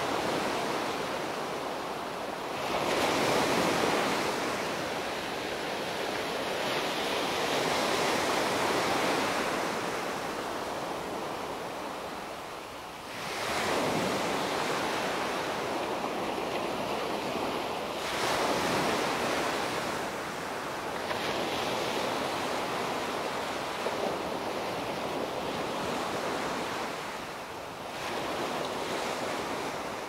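Small sea waves breaking and washing up a sandy beach, the surf swelling and falling back every few seconds.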